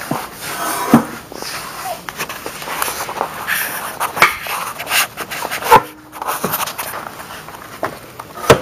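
Handling noise: rustling and shuffling with several sharp knocks and clunks, the loudest near the end.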